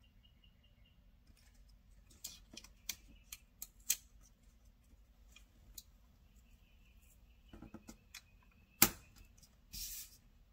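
Craft knife and fingers working washi tape on a paper planner page: scattered light clicks and scratches, a sharp tap about nine seconds in, then a brief scrape.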